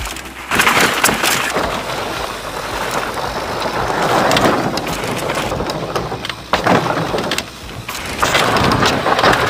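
Mountain bike ridden fast down a dirt trail and across a wooden-slat berm: tyre roar and frame and drivetrain rattle, with wind rushing over the camera microphone in swells, and a few sharp knocks, one near the end.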